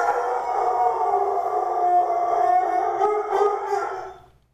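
A dog howling in long, drawn-out, wavering howls that fade out near the end.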